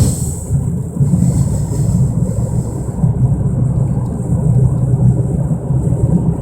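1997 Mercury Mystique driving with a loud, steady low droning noise and small swells in level. The owner says it starts on acceleration and grows louder with speed, and wonders whether a wheel bearing or the brake rotors are to blame.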